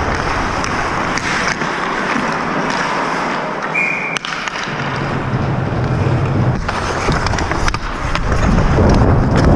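Hockey skates carving and scraping the ice, heard from a helmet-mounted camera with air rushing over the microphone, and scattered sharp clicks of sticks and puck. A brief high tone sounds about four seconds in.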